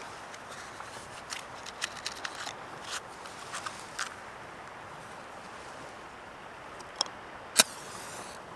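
Ocean waves washing steadily, with scattered light clicks and knocks, then two sharp cracks near the end, the second the loudest.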